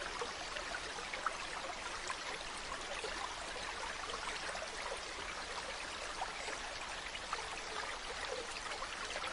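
Mountain stream running over rocks: a steady rush of water with many small splashes and trickles through it.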